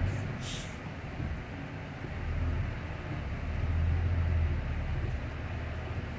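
Semi-trailer truck's diesel engine running, heard from inside the cab, its low drone swelling between about two and five seconds in. A short hiss of air sounds about half a second in.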